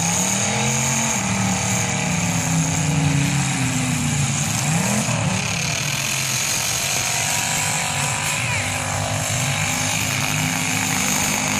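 Several demolition-derby pickup-truck engines revving together, their pitch rising and falling as they rev up and back off, then running steadier in the second half.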